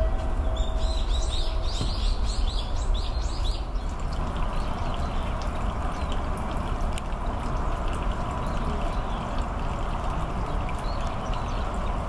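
Water trickling steadily from a bamboo spout into a stone water basin. A small bird calls in a quick run of short high notes, about four a second, over the first three seconds or so.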